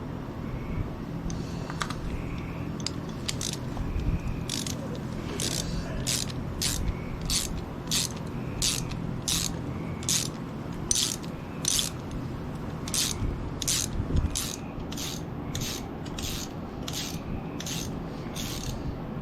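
Ratchet wrench driving a brake caliper bolt into a scooter's rear brake: a long, steady run of ratcheting clicks, about one and a half strokes a second.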